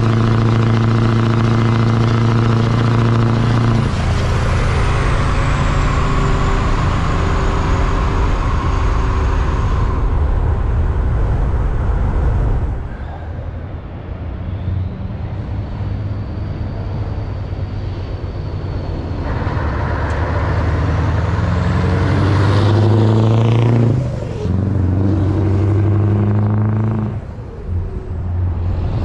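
Scania V8 diesel trucks. First a Scania 143 hooklift truck's V8 runs close by with a steady, deep engine note that changes about 4 s in, with a high falling whistle. Later a truck approaches along the road, its engine note climbing and dipping twice near the end as it changes gear.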